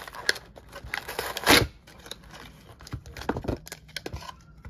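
Cardboard and plastic blister packaging being torn open by hand, with a loud rip about a second and a half in, followed by plastic crinkling and scattered clicks as the action figure is pulled free.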